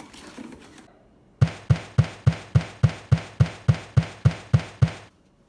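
A steady drumbeat of about a dozen evenly spaced, identical deep drum hits, three to four a second, that stops abruptly. Faint rustling comes before it.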